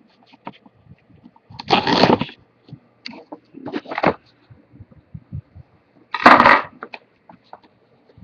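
Protective plastic wrap being pulled off a laptop, crinkling and crackling in bursts. The loudest bursts come about two seconds in and again about six seconds in, with smaller crackles between.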